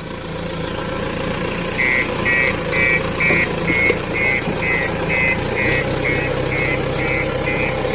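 Heavy earthmoving machine's diesel engine running steadily, its note deepening a little past halfway. From about two seconds in, a reversing alarm beeps about twice a second as the machine backs up.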